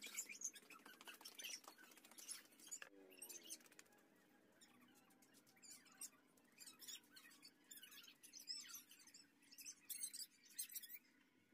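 Faint, irregular scratching and rustling: many short scrapes, with a brief rising squeak about three seconds in.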